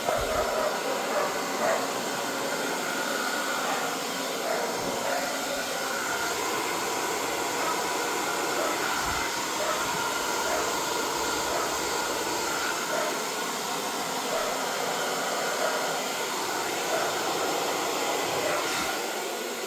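Handheld hair dryer running steadily, blowing out wet acrylic paint in a fluid-art pour.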